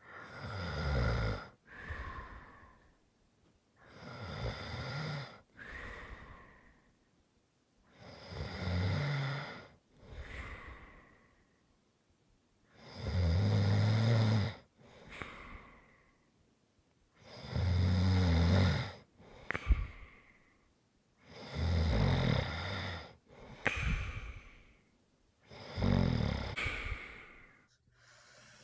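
Snoring in a steady rhythm, about one breath every four seconds: each loud snore on the in-breath is followed by a shorter, softer out-breath.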